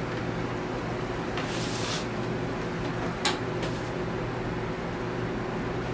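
Vinyl record packaging being handled: a short sliding rustle of a sleeve about a second and a half in, then a sharp click a little past the middle and a fainter one just after. A steady low hum runs underneath.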